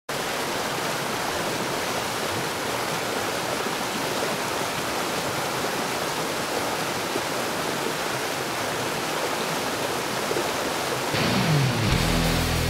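Steady rush of a flooded mountain creek pouring over boulders in whitewater cascades. About eleven seconds in, a low sliding tone leads into loud rock music that takes over.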